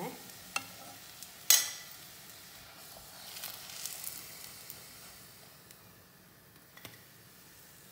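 Shallow oil sizzling in a nonstick pan as fried stuffed nendran bananas are lifted out with a metal spoon. A sharp knock of the utensil comes about a second and a half in, with a few lighter clicks, and the sizzling fades toward the end.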